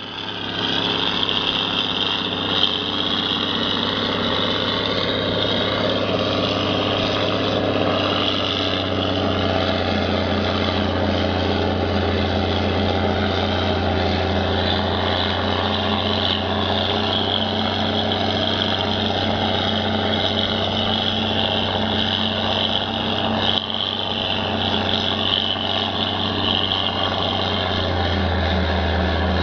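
John Deere self-propelled forage harvester running under load as it picks up and chops a windrow of heavy crop: a steady low engine drone under a high whine, with the silage truck's engine running alongside.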